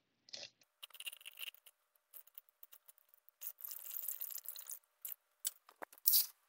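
Water being poured into a mixing bowl for sourdough dough in a short stream lasting about a second and a half, midway through. Small clicks and taps of kitchen handling come before and after it.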